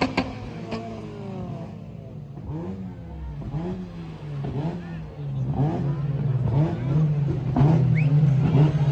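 Car engine revving in repeated throttle blips, its pitch rising and falling again and again, getting louder in the second half.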